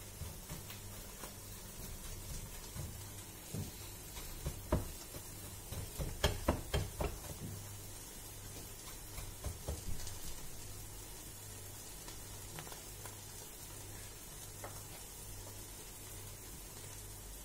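Cod fillet being breaded by hand: soft taps and knocks of the fish and fingers against the plate of breadcrumbs, bunched in a run around the middle, over a faint steady hiss and low hum.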